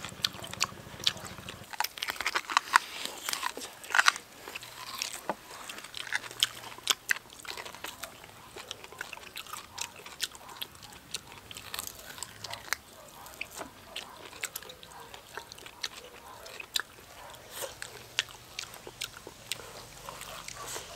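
Two people eating braised beef hooves held in their hands: biting and chewing the soft meat and skin, with many irregular short wet clicks of mouth sounds.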